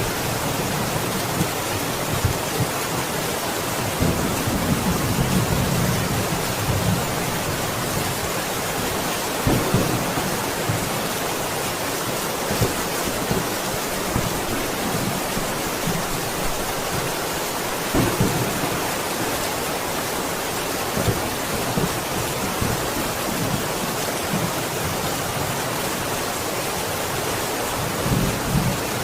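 Steady rain, an even hiss, with short low rumbles of thunder a few times.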